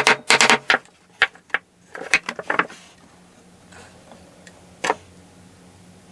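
Short, sharp taps and clicks in quick clusters over the first few seconds, then a couple of single clicks, from hand work fitting metal fret wire into a ukulele fretboard.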